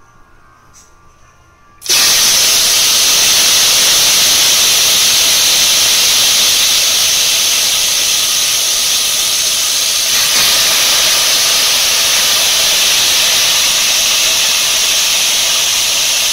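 Marinated chicken pieces hitting a hot pan and sizzling loudly: the sizzle starts suddenly about two seconds in and stays steady.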